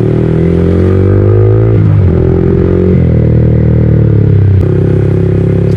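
Yamaha MT-15's 155 cc single-cylinder engine through an aftermarket full-system exhaust, ridden under acceleration: the note climbs in pitch, drops sharply about two seconds in at a gear change, climbs again and drops at a second shift near the end.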